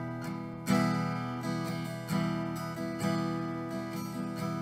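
Solo acoustic guitar playing an instrumental piece with no singing. Chords are struck sharply about once a second and left to ring and fade, with lighter notes between them.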